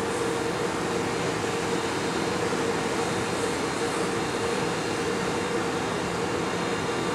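Steady machinery drone aboard a ferry under way, with one constant hum and a rush of wind and water noise.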